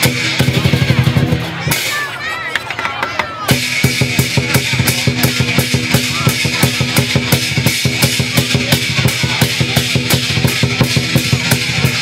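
Lion dance percussion: a big drum beaten in fast, steady strokes with clashing cymbals and ringing metal, the beat growing denser and more even about three and a half seconds in.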